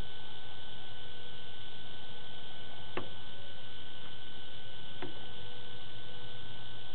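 Steady electronic hum and hiss from a security camera's microphone, with a thin steady whine above it. Two short clicks come about three and five seconds in.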